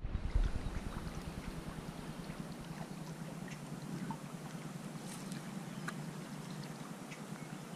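Steady wind on the microphone and small waves lapping against a rocky lake bank. A brief low bump comes just after the start, and a few faint tiny ticks are scattered through.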